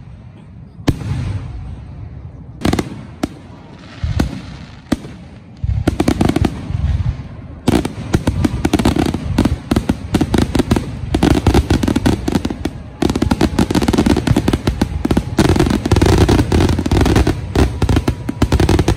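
Aerial fireworks shells bursting: a few separate bangs, then from about six seconds in a dense, continuous barrage of rapid booms and crackling.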